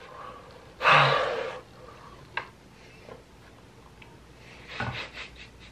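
A man's heavy, breathy breath about a second in, fading over most of a second, while he chews through a mouthful of baguette; a few faint mouth clicks follow later.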